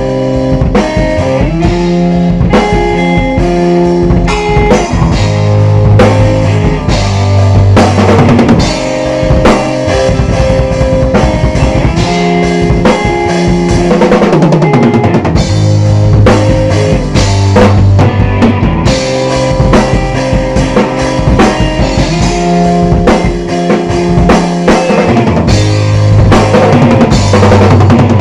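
A band playing an instrumental passage: a drum kit keeps time with bass drum and snare hits under held guitar notes that change every second or two.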